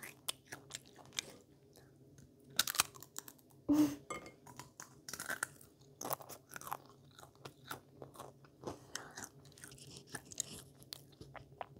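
A person crunching and chewing crisp potato chips close to the microphone, with irregular crackling bites throughout.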